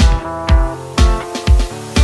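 Background music with a strong steady beat, about two beats a second, under held pitched notes.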